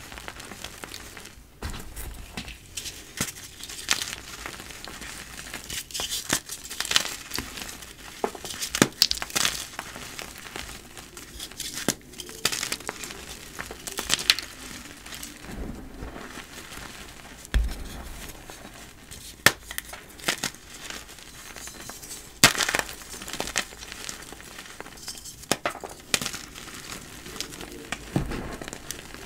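Dyed gym chalk blocks crunching and crumbling: dense, irregular crackling with a few sharper snaps.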